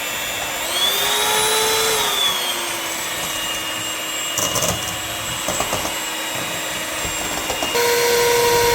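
Electric mixer running in a bowl of eggs, sugar and salt, a steady motor whine. Its pitch rises about a second in and eases back down, there are a few short clicks midway, and near the end it steps up to a higher steady tone.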